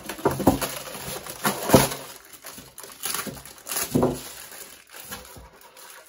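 Clear plastic bag crinkling and rustling as it is pulled off a monitor stand, with knocks from the packaging being handled.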